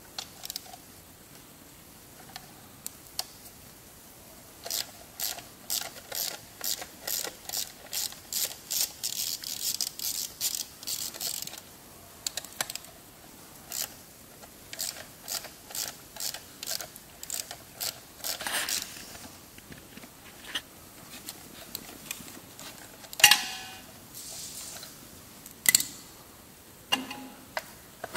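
Hand ratchet clicking in quick runs as the bolts of a VW TDI engine's lower timing-belt cover are undone, with scattered single clicks and a couple of louder knocks near the end.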